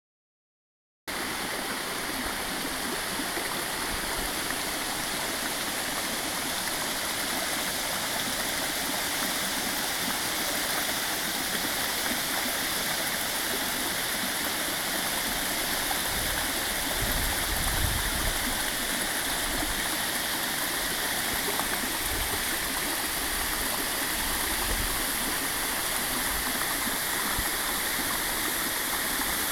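Waterfall pouring into its plunge pool heard from close in front: a steady, full rush of falling water, with a few brief low rumbles about halfway through.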